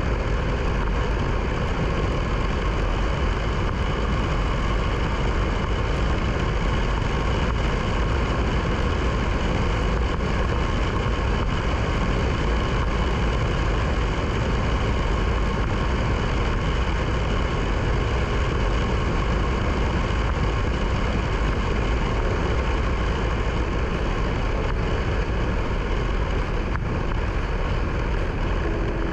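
KTM Duke 390's single-cylinder engine running at a steady cruising speed under heavy wind and road noise, holding the same pitch and level with no gear changes or revving.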